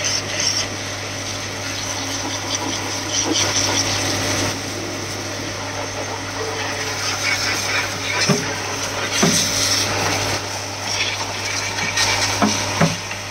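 Electric high-pressure washer pump running with a steady hum while its water jet hisses against a mud-caked tractor canopy, blasting the mud off. A few short, louder hits come in the second half.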